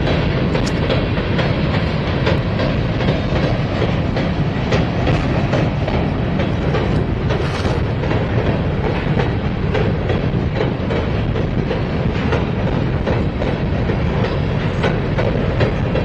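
Freight train's covered hopper cars rolling across a steel truss bridge: a steady rumble with the wheels clicking over the rail joints.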